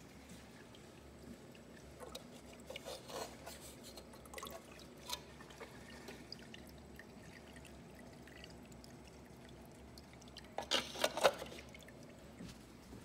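Drain water trickling and splashing into the filter compartment of a Red Sea Reefer 450 aquarium sump, with bursts of louder splashing a couple of seconds in and again near the end, over a low steady hum.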